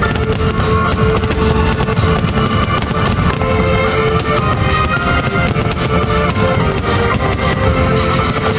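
Fireworks crackling and popping over loud rock music with electric guitar.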